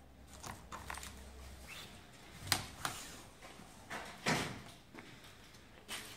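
Handling of metal mosquito-net frame profiles on a work table: a scattering of light clicks and taps with a few short scrapes, the longest scrape about four seconds in.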